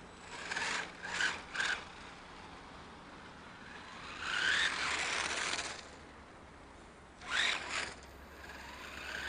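Electric RC car (3D-printed OpenRC F1 car) accelerating across asphalt in bursts: the motor and gears whine, rising in pitch, with tyre noise. There are three short bursts in the first two seconds, a longer rising run about four seconds in, and another short burst about seven seconds in.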